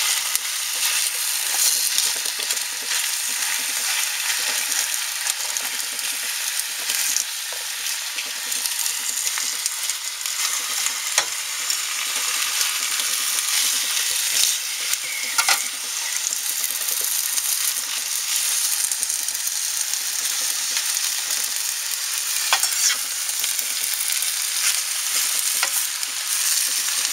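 Spinach cooking in olive oil in a frying pan, sizzling steadily as it wilts and is stirred, with a few sharp clicks of the utensil against the pan.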